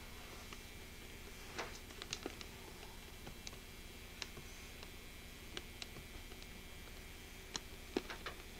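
Faint, irregular light clicks and taps, a small pet parrot's claws and beak on a windowsill and window glass, over a steady low hum.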